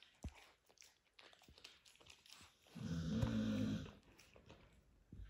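Puppy gnawing a rawhide chew bone: scattered wet clicks and crunches of teeth on hide. About three seconds in, the puppy gives a low, drawn-out groan lasting about a second, the loudest sound.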